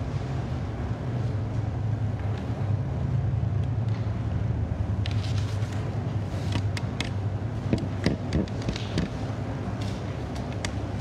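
A steady low hum or rumble, with a scattering of short clicks and light knocks starting about halfway through.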